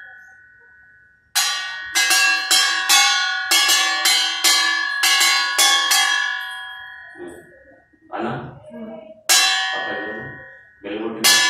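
A stainless-steel plate struck with a metal rod as a makeshift school bell, clanging and ringing. A quick run of about a dozen strikes comes over five seconds, then two more single strikes near the end.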